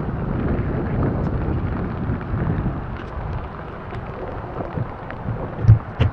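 Wind and rain noise on a cyclist's camera microphone, a steady low rumble, with two low knocks near the end.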